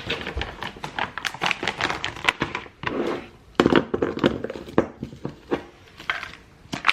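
Kitchen handling noises: irregular clicks, taps and knocks of a scoop and containers as protein powder goes into a smoothie.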